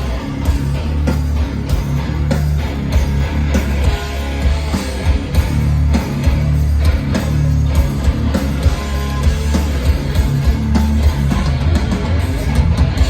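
Hardcore band playing live and loud: heavy distorted electric guitars and bass over fast, dense drumming, with no singing.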